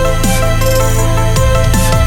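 Electronic background music with a steady, heavy bass and sustained synth notes.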